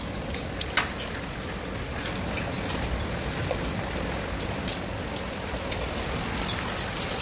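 Hailstorm: a steady hiss of falling hail with many scattered sharp ticks of hailstones striking the ground and objects, one louder tick about a second in.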